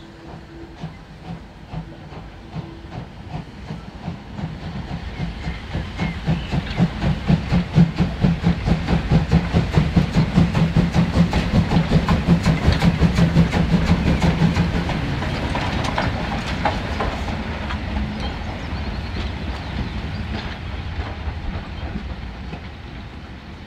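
Steam locomotive 50 3610-8, a two-cylinder DR class 50.35 2-10-0, working under steam as it passes. Its exhaust beats come fast and even, building to a loud peak around the middle and then fading as it moves away.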